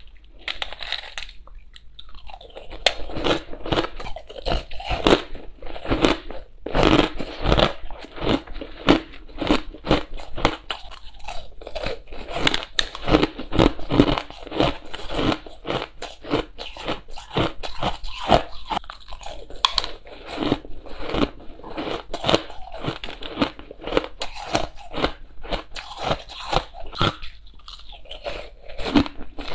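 Crushed ice being bitten and chewed close to a clip-on microphone: dense, rapid crunching, several crunches a second, with a few brief lulls.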